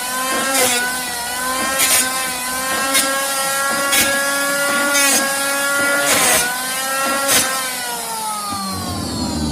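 Electric angle grinder motor running with a steady whine that dips and recovers slightly, with a short harsh scrape about once a second. Over the last second or so the whine falls in pitch as the motor slows.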